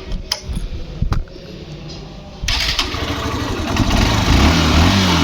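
Two sharp clicks, then about two and a half seconds in a Honda Shine motorcycle's electric starter turns the single-cylinder engine over and it catches and keeps running, its speed rising and falling a little near the end: the repaired self-start now starts the engine instead of only ticking at the relay.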